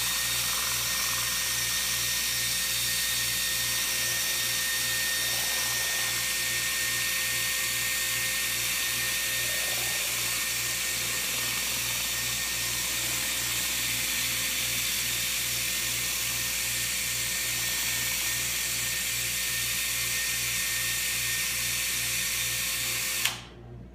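Electric drill with a mixing paddle running steadily, stirring a batch of two-part urethane foam, then cutting off suddenly about a second before the end.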